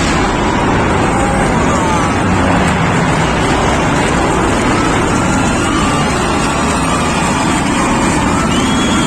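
Loud, steady jet noise from a Sukhoi Su-30MKV fighter's twin turbofan engines in a flying display, with faint gliding whistle-like tones through it.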